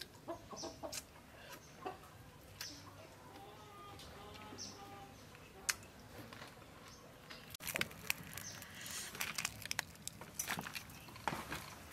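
Chickens clucking in the background, with short smacking and chewing clicks from someone eating. From about two-thirds of the way in, a denser run of crackling and tearing clicks as fingers pull apart salt-roasted turtle meat.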